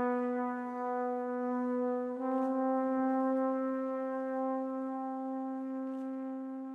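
Music: a single brass instrument holds one long note, steps up slightly to a new note about two seconds in, and holds that one, slowly growing softer.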